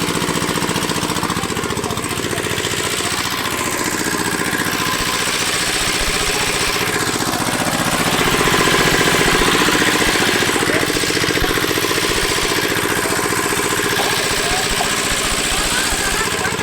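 A small engine running steadily at an even speed, slightly louder in the middle.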